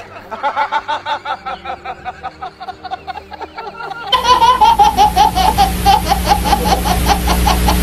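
Laughter in quick, rhythmic repeated 'ha' sounds. About four seconds in it gets louder: a baby laughing hard.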